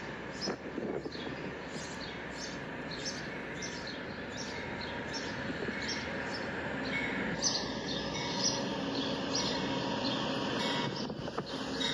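Motorised LEGO train running on plastic LEGO track: a steady rattle of plastic wheels with a regular clicking as they pass over the track joints, growing louder as the locomotive approaches.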